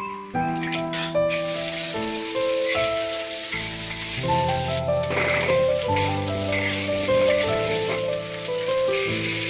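Food sizzling as it fries in hot oil, a steady hiss that comes in about a second in, with soft melodic background music throughout.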